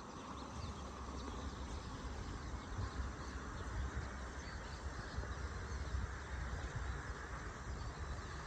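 Wind buffeting the microphone in gusts over a steady rushing noise, with a few faint bird chirps.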